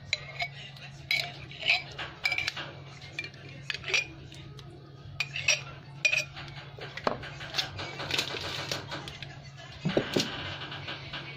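A metal spoon clinking and scraping against the rim of a plastic mayonnaise jar, with many short knocks as mayonnaise is scooped out onto a bowl of macaroni salad. A steady low hum runs underneath.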